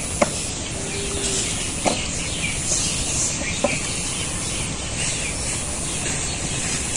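Outdoor rural ambience: birds chirping faintly now and then over a steady hiss and low rumble, with three short sharp clicks in the first four seconds.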